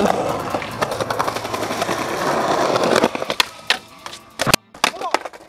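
Skateboard wheels rolling loudly over concrete. About three seconds in come several sharp clacks as the board hits and slides on a concrete ledge.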